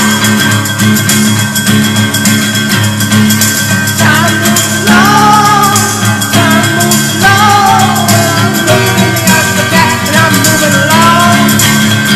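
Background music: a guitar-led song with a steady bass, with a wavering melody line coming in about four seconds in.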